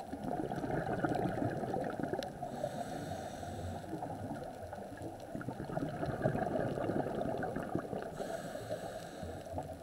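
Underwater ambience picked up by a submerged camera: a steady, muffled water noise with a dense fine crackle, swelling and easing a little.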